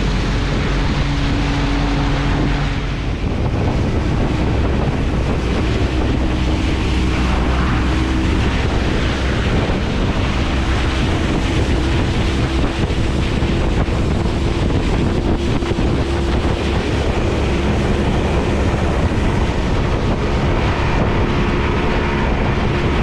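Outboard motor of a small fishing boat running under way, with water rushing along the hull and wind buffeting the microphone. The motor's pitch shifts slightly about three seconds in.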